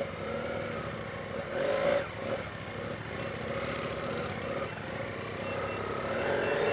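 BMW F 800 GS parallel-twin motorcycle engine pulling at low speed off-road, its revs rising and falling with the throttle, surging about two seconds in and again near the end.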